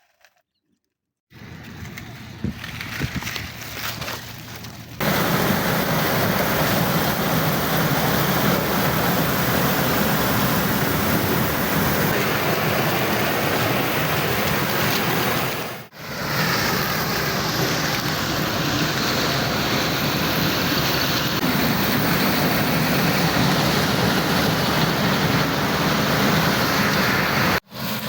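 FM World combine harvester running steadily under load as it harvests and threshes maize, a loud continuous machine noise with a steady low hum. It starts about a second in, gets louder a few seconds later, and breaks off briefly twice where the footage is cut.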